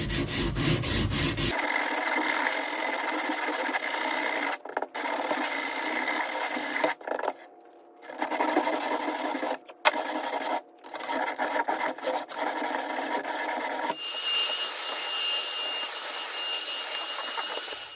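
Coarse 60-grit sandpaper rubbed back and forth by hand along a wooden drawer track, a steady scratchy rasping broken by a few short pauses. The sanding takes down bumps in the worn track so the drawer's center guide stops binding.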